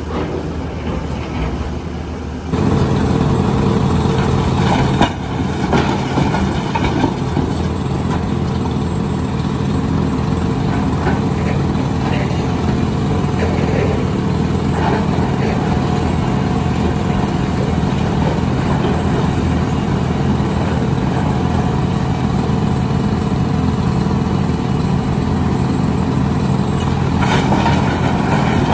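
Heavy diesel engine running steadily under load: a Volvo crawler excavator working rock, its drone stepping up louder about two seconds in. Short knocks of rock come through at times, and near the end rocks clatter as the bucket dumps its load into a steel dump-truck bed.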